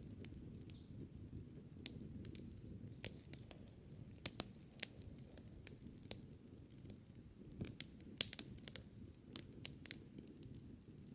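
Wood campfire crackling: irregular sharp pops and snaps over a low, steady rush of noise, with a brief cluster of louder snaps about eight seconds in.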